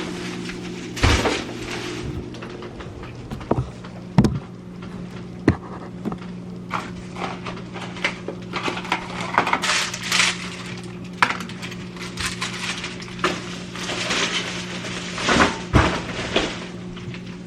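Glass and plastic kitchenware being handled: scattered clinks, knocks and rattles of containers, dishes and shelves being moved about, over a steady low hum.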